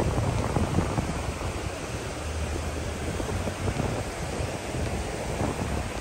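Wind buffeting the microphone in uneven low rumbling gusts, strongest in the first second, over a steady hiss of small waves washing on the shore.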